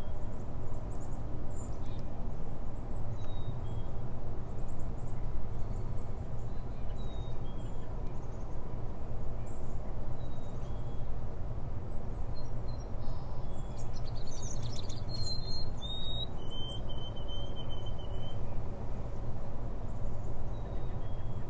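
Steady low background hum with faint, scattered bird chirps. About two-thirds of the way through comes a clearer whistled note, held for about two seconds, that steps down in pitch partway.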